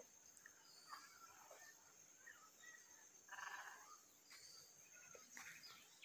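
Faint, scattered bird calls, with a short harsh squawk about three and a half seconds in.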